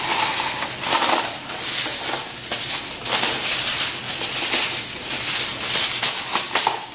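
Reynolds Wrap aluminium foil crinkling and rustling in irregular crackles as a sheet is pulled off the roll and spread over a disposable foil baking pan.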